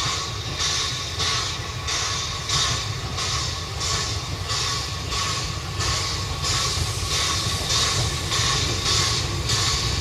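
Narrow-gauge steam tank locomotive working under steam, its exhaust chuffing in an even beat of about two a second over a low rumble, growing a little louder as it draws near.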